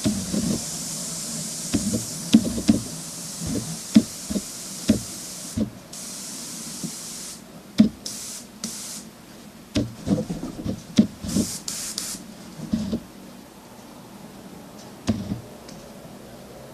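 Airbrush hissing as compressed air blows through it: one long hiss for the first five seconds or so, then shorter bursts near 8 s and 11 to 12 s, with knocks and clicks from handling the gun. It is not yet drawing up any paint, which the user suspects is down to too little air pressure.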